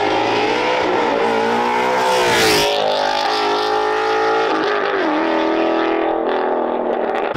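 Sports car accelerating hard past, its engine revving up through the gears. It passes close about two and a half seconds in, with a sharp drop in pitch, then pulls away, climbing again with another shift near five seconds.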